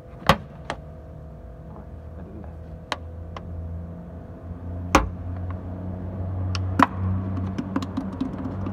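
A plastic bottle glued by its neck to a dent in a car's wheel-arch panel, gripped and pulled as a dent puller: a series of sharp snaps and clicks, three of them loud, with a run of small plastic ticks near the end as the bottle comes away from the glue tab. A steady low hum runs underneath and grows louder after the middle.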